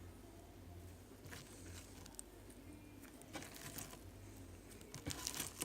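Faint soft handling noises of homemade slime being squeezed and worked by hand: a few short, sticky, rustling bursts that grow busier near the end.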